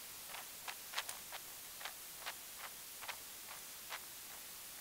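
Faint, light ticks, roughly two a second, over a steady hiss.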